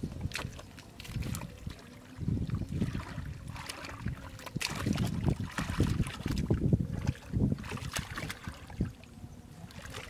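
Hands sloshing and squelching through shallow muddy water and soft mud while feeling for catfish, in irregular splashes and wet slaps.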